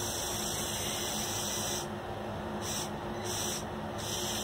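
Lego Technic RC pneumatic backhoe: a small electric motor hums steadily while compressed air hisses in stretches that start and stop several times.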